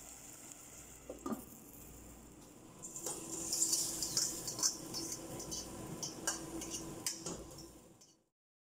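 Boiled spaghetti tipped from a stainless steel colander into a stainless stock pot of frying vegetables, starting about three seconds in: metal clinks and clatters of colander and utensil against the pot, over a sizzling hiss. The sound cuts off abruptly near the end.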